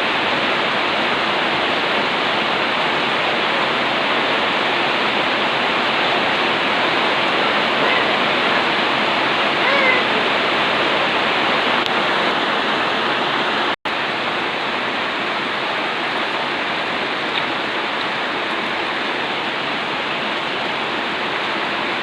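Heavy rain falling, a steady even hiss, with a momentary break in the sound a little over halfway through.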